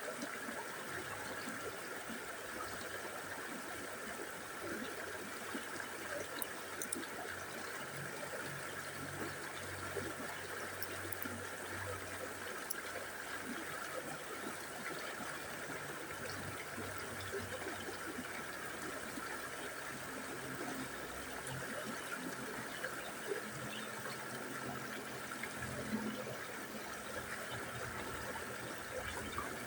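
River water running steadily, an even rushing and trickling, with a faint low hum coming and going beneath it.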